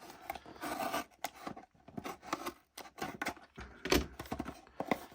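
Packaging of a small Lego set being handled and torn open: irregular rustling, scraping and tearing with small clicks, and one louder knock about four seconds in.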